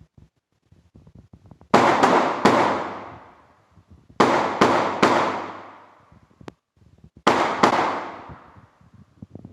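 Gunshots fired in quick strings: three shots, then three more, then two, each about a third of a second apart, with every string ringing out in a long echoing decay.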